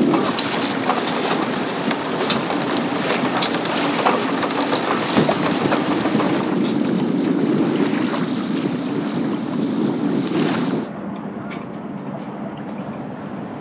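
Strong wind buffeting the microphone on a sailboat under way in a headwind, with water splashing and sloshing against the hull. About 11 seconds in it cuts to a quieter, steadier wash of water with lighter wind.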